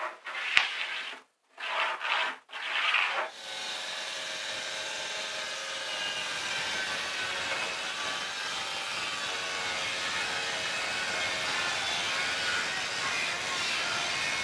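A compact 12-volt cordless circular saw running and cutting through a plywood sheet, a steady whine over the noise of the cut, starting about three and a half seconds in. Before it come a few short scrapes and a sharp knock.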